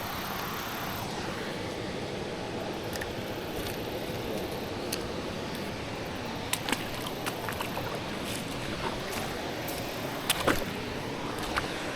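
Steady rushing of flowing river water, with a few light clicks and taps: several about six and a half to seven and a half seconds in, and a short cluster about ten and a half seconds in.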